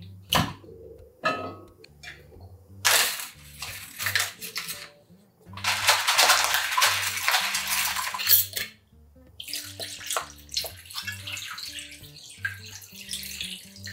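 Ingredients going into an enameled cast-iron pot: a few clicks and knocks, then a loud stretch of rustling as whole peppercorns are shaken in from a packet, then water poured from a filter pitcher into the pot near the end. Soft background music with a repeating bass line underneath.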